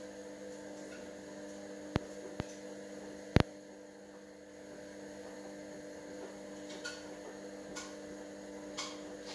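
A steady electrical hum of several low tones, broken by three sharp clicks between about two and three and a half seconds in, the last the loudest.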